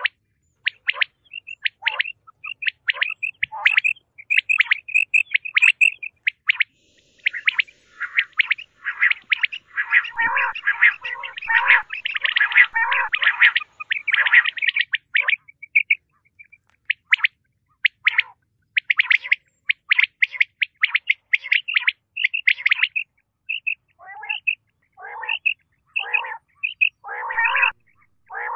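Common quail calling: a rapid run of short, high chirping calls that crowd and overlap in the middle, then thin out into a slower series of fuller calls about one a second near the end.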